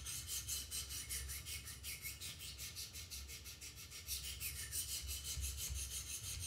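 Wicked Edge guided sharpener's stones rasping along the edge of a Benchmade Mini Reflex II knife blade, in quick, even strokes.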